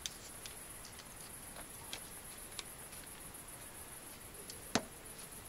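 Crickets chirping steadily in a high, even trill, with a few faint clicks and one louder knock near the end.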